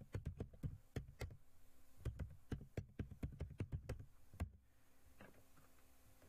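Typing on a computer keyboard: a quick run of key clicks lasting about four and a half seconds, ending in one louder click.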